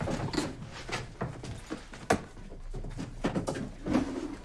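Irregular knocks, taps and rustles of people moving about a room and handling papers and folders on a wooden desk, with one sharp knock about two seconds in the loudest.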